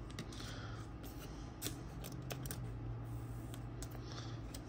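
Baseball trading cards being handled by hand: a few light clicks and slides of card stock as the cards are flipped through, over a faint steady low hum.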